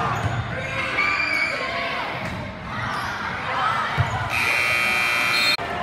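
Basketball gym crowd noise with spectators shouting and a ball thudding on the hardwood floor about four seconds in, followed by a loud steady buzzer sounding for about a second and a half and cutting off abruptly.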